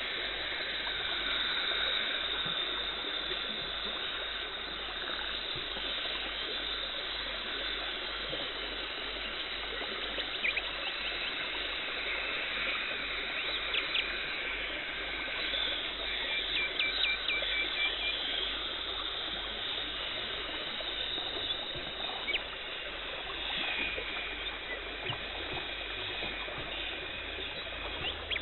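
Dental cleaning equipment running: a steady hiss and trickle of water spray and suction, with a few light clicks and a brief run of short high tones around the middle.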